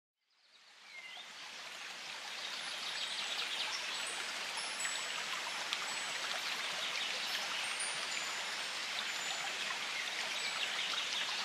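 Steady rushing of flowing water, fading in from silence over the first two or three seconds.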